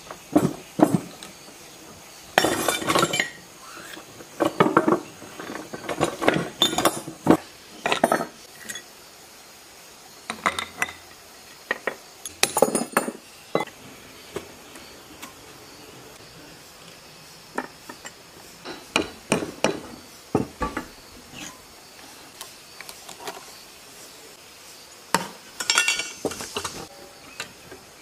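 Irregular metal clanks and clinks of hand tools on a rusty engine casing as it is taken apart, with wrenches and a long bar working at its bolts.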